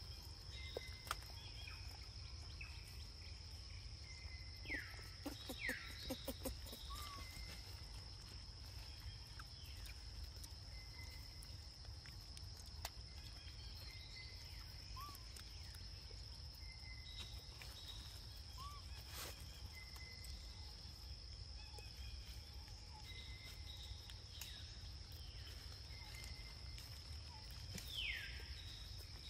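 Steady, high-pitched insect drone, one unbroken tone, with a few short, sharply falling chirps and scattered soft clicks over a low rumble.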